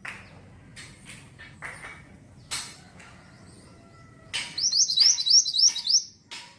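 Pied bushchat (mantenan) calling: scattered short, sharp chirps, then a little past four seconds in a loud run of about six quick, high, slurred notes repeated evenly over a second and a half.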